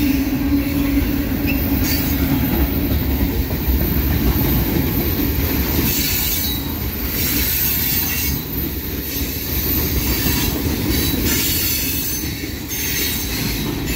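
Freight train cars rolling past: boxcars and tank cars rumbling and clattering on the rails, with a high hiss from the wheels that swells and fades several times.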